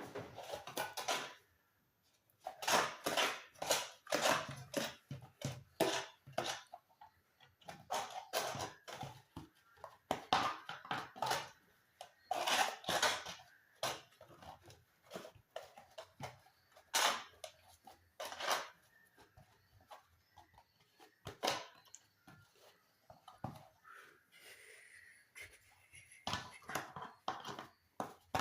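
Irregular knocking and clattering of cooking pots and utensils, coming in quick clusters with short pauses between.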